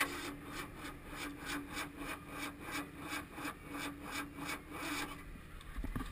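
Demolition-derby car's V8 engine cranked over by its starter without catching: a steady starter whine with about four compression beats a second, stopping after about five seconds. The engine died after a radiator hose blew, and the driver suspects coolant got his distributor wet.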